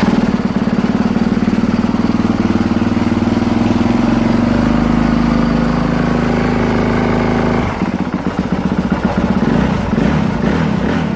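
Honda CRF450R's single-cylinder four-stroke engine running just after starting on a new battery, showing it is not locked up. About eight seconds in the sound changes, turning quieter and less even.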